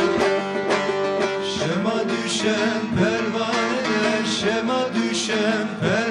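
Bağlama (saz) playing a rhythmic, plucked Anatolian folk accompaniment. About a second and a half in, a male voice starts singing the deyiş over it.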